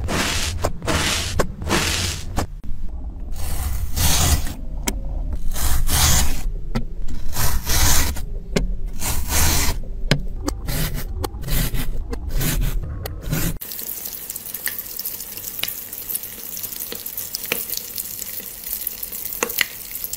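Crunching, scraping strokes as a metal tool cuts into packed sand, one after another, over a steady low rumble. About two-thirds of the way through they give way to a softer, steady wet hiss with faint ticks.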